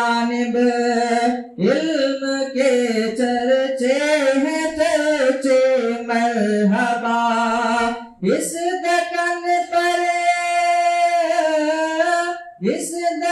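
A man singing an Urdu manqabat, a devotional poem in praise of a saint, in a solo voice with ornamented, bending phrases. Past the middle he holds one long steady note for about four seconds before a new phrase begins.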